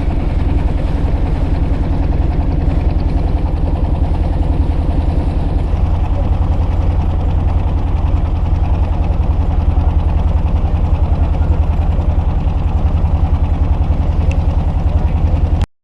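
A small engine running steadily with a fast, even pulse. It cuts off abruptly at the very end.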